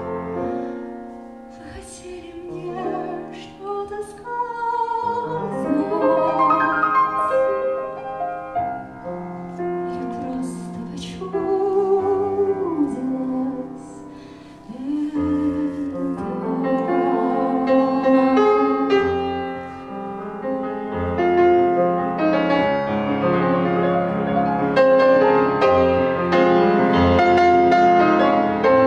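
A woman singing a slow, lyrical song with vibrato, accompanied on a grand piano; in the later part the piano plays on alone.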